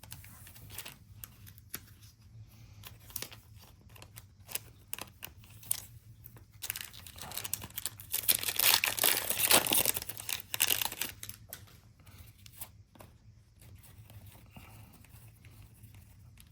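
A foil trading-card pack wrapper being torn open and crinkled, loudest for a few seconds in the middle. Before and after it come light scattered clicks and rustles of cards and packaging being handled.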